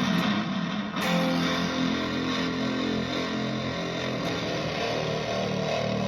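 Electric guitar played through effects pedals into a Vox AC15 amp: a chord is struck about a second in and rings on, sustaining as a thick, heavily effected tone.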